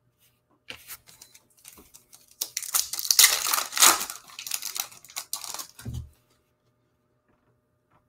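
Foil wrapper of a Mosaic basketball card pack being torn open and crinkled, loudest in the middle, ending with a soft thump about six seconds in.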